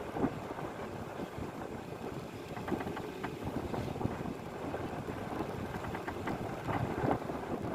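Fishing boat's engine running low, mixed with wind buffeting the microphone, with a few light knocks.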